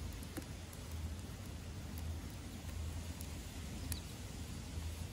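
Wood fire crackling in a metal fire pit, with a few sharp pops (the loudest near the end) over a steady low rumble.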